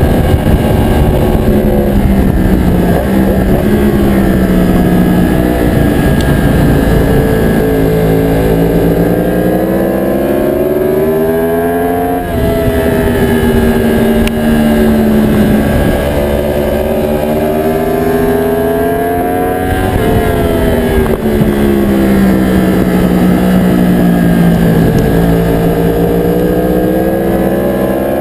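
Aprilia Tuono motorcycle engine heard from onboard at track speed over heavy wind rumble. Its pitch climbs under acceleration and falls off through the corners, with a sudden drop about twelve seconds in.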